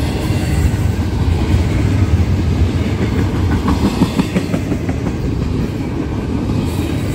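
Double-stack intermodal freight train rolling past: a steady low rumble from the container-laden well cars, with wheels clacking over the rails, a cluster of clanks near the middle.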